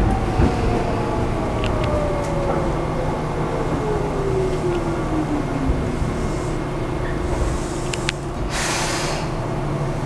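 Tobu 9000 series electric train braking to a stop, heard from inside the car: a motor whine falls steadily in pitch over about six seconds over a steady low rumble, then a short hiss of air follows near the end.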